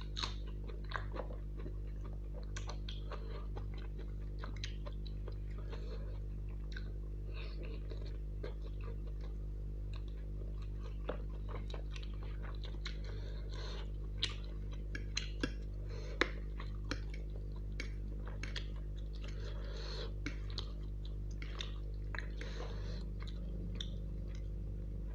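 Close-miked mouth sounds of eating: chewing a bitten-off raw long green chilli and chicken Maggi noodles, a run of short wet clicks and smacks with a few louder ones near the middle, over a steady low hum.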